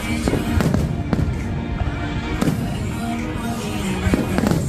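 Aerial firework shells bursting in a string of sharp bangs, several in the first second and a cluster near the end, with music playing underneath.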